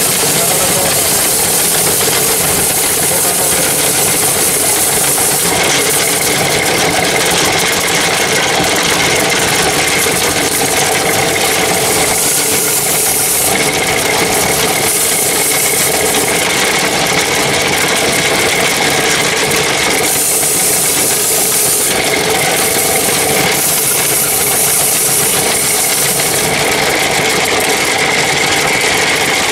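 Motor-driven cast-iron ice gola shaver running steadily, its blade scraping a spinning block of ice into fine shavings. The high scraping hiss grows and eases at intervals.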